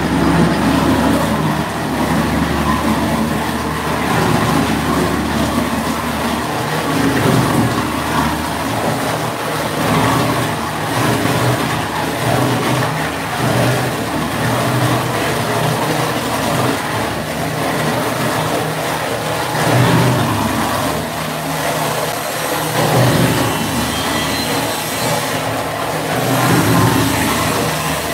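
Meat-processing machinery running with a steady, loud mechanical noise from an electric motor drive.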